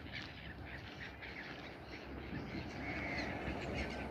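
Many birds calling along the river, short chirps and calls overlapping throughout, over a low steady rumble.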